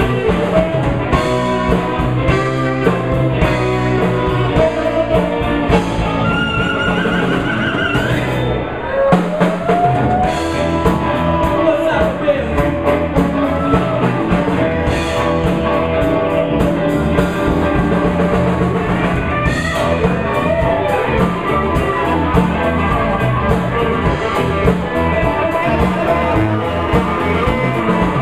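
Live blues band jamming: electric guitar over a drum kit and the rest of the band, with bent, gliding lead lines.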